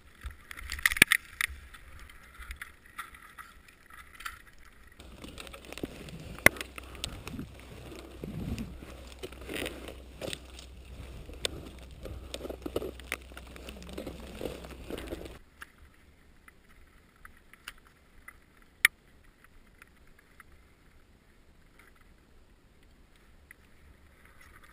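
Climbing noises on snow and ice: scattered sharp knocks, scrapes and clicks of crampons and ice tools biting in, with clinks of gear. The sound changes abruptly twice, and the last part is quieter, with one lone sharp click.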